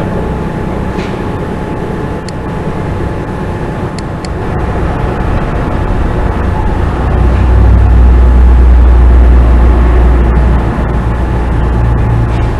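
Steady low background rumble, like traffic or machinery, that swells louder for a few seconds in the middle. A few faint clicks sound over it.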